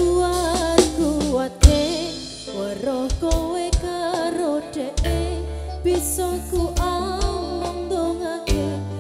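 Campursari band playing live: a woman sings a wavering melody over a Korg keyboard, long deep bass notes and hand-drum strokes, with one hard drum hit about one and a half seconds in.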